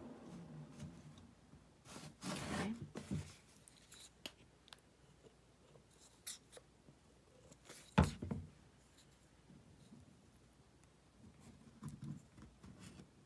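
Quiet handling of small wooden pieces on a workbench: wood scraping, rubbing and light tapping as pieces are positioned and glued, with one sharp knock about eight seconds in.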